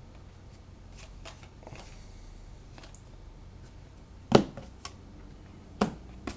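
Trading cards being handled on a table: faint rustling and light ticks, with two sharp taps, one past the middle and one near the end.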